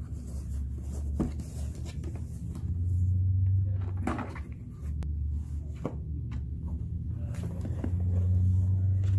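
Hands handling a cardboard gift box as the ribbon comes off and the lid is opened: scattered taps and rustles, over a loud low hum that swells and fades.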